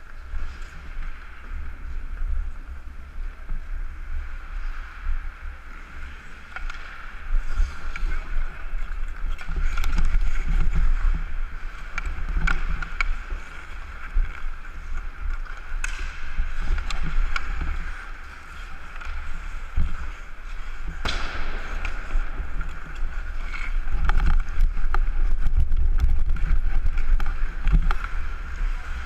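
Ice hockey heard from a helmet-mounted action camera: a steady low rumble of wind and movement on the microphone, skates scraping on the ice, and a few sharp clacks of sticks and puck.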